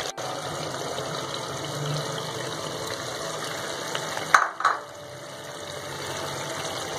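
Tomato masala sizzling steadily in oil in a pot, the oil having separated from the tomatoes. A brief, louder two-part noise comes about four and a half seconds in.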